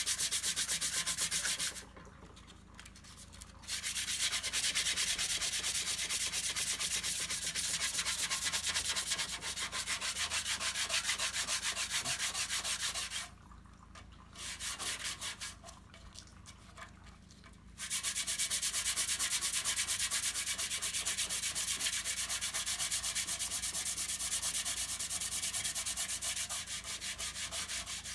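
Dry sanding of body filler: abrasive rasping steadily over hardened filler in quick, repeated strokes. It stops for a couple of seconds about two seconds in, and again for several seconds around the middle, apart from one short burst.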